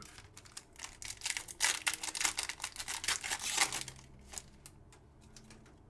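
Crinkling and crackling of a trading-card pack's wrapper and the cards as a pack is opened and handled, a dense run of short crackles for about four seconds that thins to a few ticks and then stops.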